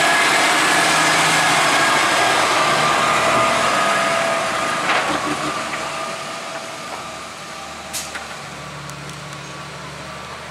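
Ford 8770 tractor's six-cylinder diesel engine running as it pulls a loaded tipping trailer past close by, then fading as it drives away. Two short sharp knocks come about five and eight seconds in.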